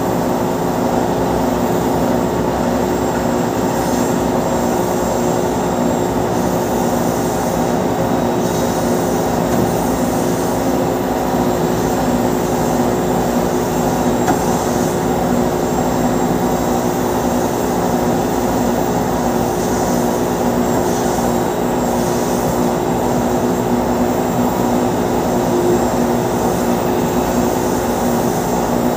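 Steady, loud machinery drone with a few constant humming tones, from a Boeing 777-300ER being pushed back on a towbar, heard right beside its nose gear.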